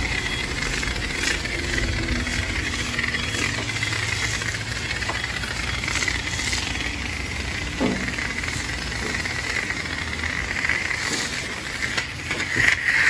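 High-pressure water spray hissing steadily as a vehicle is washed, with a motor running underneath; the spray gets louder briefly near the end.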